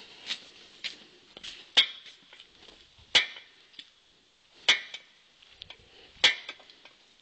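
A series of sharp clicks and knocks, about six of them at irregular intervals of one to one and a half seconds, over a faint hiss.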